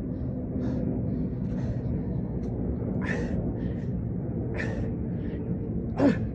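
Hard, rhythmic breathing during push-ups, one sharp exhale or gasp about every second and a half, over a steady low rumble. Near the end comes a short, louder vocal sound that drops steeply in pitch.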